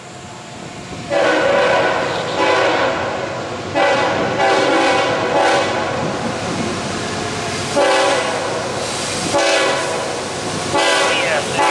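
Nathan K5HL five-chime air horn on an approaching GE AC44CW diesel locomotive, sounding a series of long blasts with short gaps between them, a warning to the people standing beside the track.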